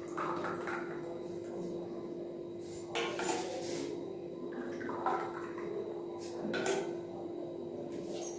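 Steel bowl knocking and scraping against stainless steel tumblers as a thick milk ice cream base is poured into them: a few separate clinks and a longer scrape about three seconds in, over a steady hum.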